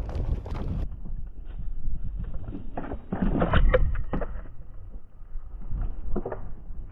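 Wind buffeting the microphone over the low rumble of a Onewheel's treaded tyre rolling fast over a bumpy dirt trail, with a cluster of knocks and rattles about three to four seconds in.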